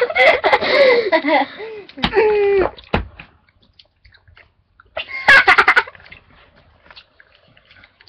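Girls laughing loudly in bursts: one laugh running through the first couple of seconds, a short one just after, and another burst about five seconds in.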